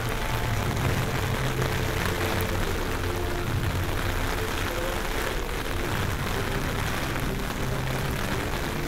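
Steady rush of hurricane wind and rain, with a low rumble of the wind gusting across the microphone.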